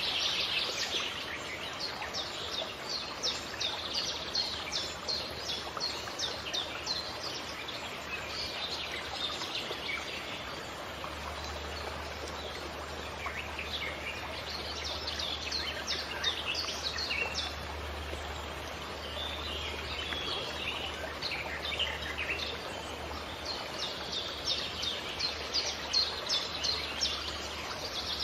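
Small birds chirping in quick runs of short, high notes, over a steady background rush. The chirping thins out briefly a little before the middle, then picks up again.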